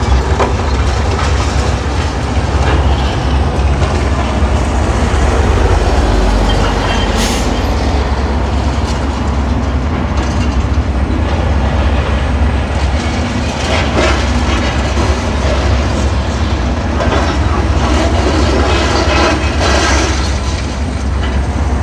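Heavy demolition machinery working, with a continuous low rumble and intermittent clanks and clatter of breaking rubble. The sharpest crash comes about seven seconds in, and more clatter follows later.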